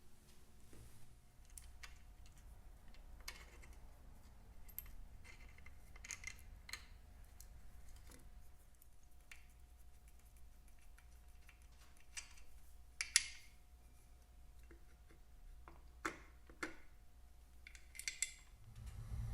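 Scattered light clicks and metallic taps of hand tools on nuts and bolts as a motorcycle's rear plates are unbolted, over a faint steady low hum. The sharpest click comes about 13 seconds in, and a quick cluster of taps follows near the end.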